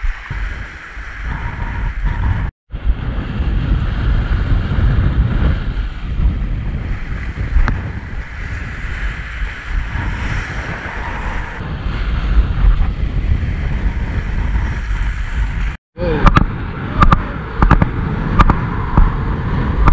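Wind buffeting the microphone over sea waves washing against rocks, a steady rumbling roar that cuts out abruptly twice. A few sharp clicks come near the end.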